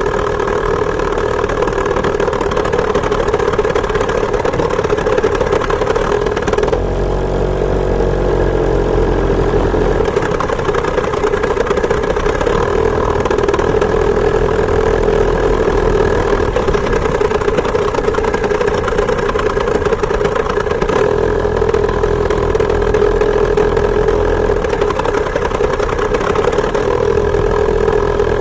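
Two-stroke chainsaw engine driving a homemade moped, running steadily at high revs. About seven seconds in the revs drop and waver briefly, then climb back and hold steady again.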